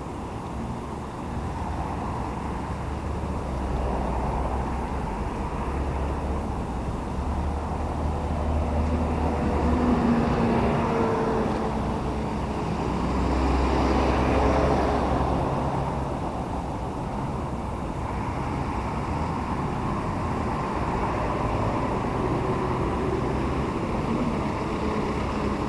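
Road traffic: a continuous rumble of passing cars and heavier vehicles, swelling louder twice, about ten and fourteen seconds in, as vehicles go by.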